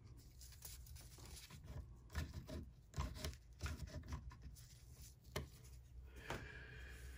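Faint handling noise from gloved fingers fitting the stop onto a Singer 500J's throat plate positioning bracket: soft rubbing with a few light clicks of small metal parts.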